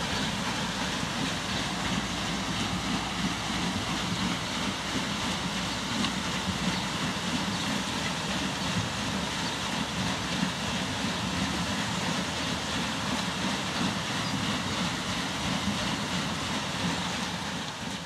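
Water rushing and splashing over a turning wooden mill waterwheel, a steady, unbroken rumbling wash.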